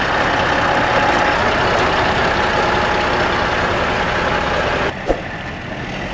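Kenworth semi truck's diesel engine idling steadily. The sound drops suddenly to a lower level about five seconds in.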